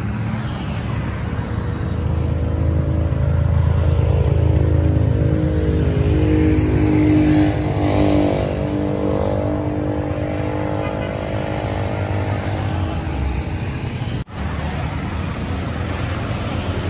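Road traffic passing: cars and motorcycles driving by, one vehicle's engine growing louder to a peak and then fading as it passes. The sound cuts out for an instant near the end, then the traffic noise resumes.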